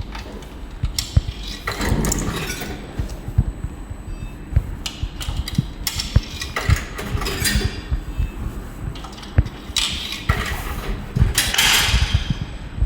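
Coins being fed into a car park pay machine: a run of clicks, clinks and knocks as they drop through its coin mechanism, with a few longer rattles.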